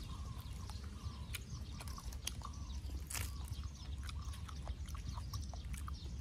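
Close-up eating sounds: a person chewing, with many short, irregular mouth clicks and smacks, over a steady low rumble.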